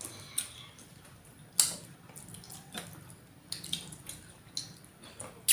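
Eating at a table: a spoon and fork clicking now and then against a plate, with wet sounds of sinigang broth and fish being eaten.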